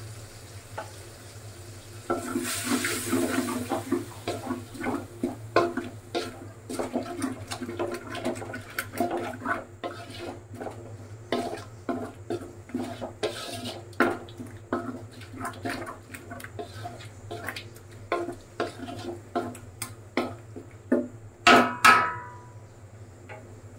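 A spoon stirring and scraping a thick tomato, yogurt and spice masala in a cooking pot, with irregular knocks and scrapes against the pot. Near the end come a couple of louder ringing knocks of the spoon on the pot.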